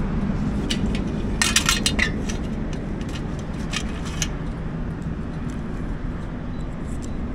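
A bunch of keys jingling in two short bursts, about a second and a half in and again near four seconds, over a steady low rumble.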